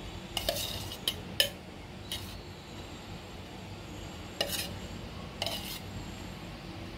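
Spoonfuls of ghee dropped into hot milk-and-sugar syrup in a nonstick pan: a spoon clicks and scrapes against the pan several times over a steady low simmer.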